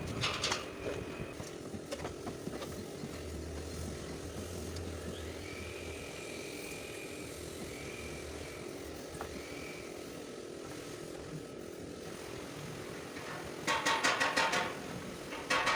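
Steady workshop background noise, then, near the end, a quick run of hammer blows ringing on a sheet-metal car body panel, with one more blow just before the end.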